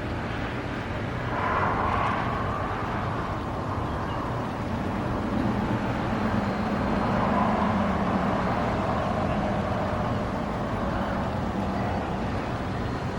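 Road traffic passing: a vehicle swells past about two seconds in, then a longer, louder pass with a low engine hum from about five to ten seconds in.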